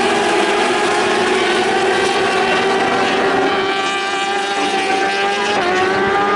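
A pack of racing motorcycles running hard on track, several engines at high revs overlapping, their pitch climbing. Near the end one engine drops sharply in pitch, a shift or throttle lift.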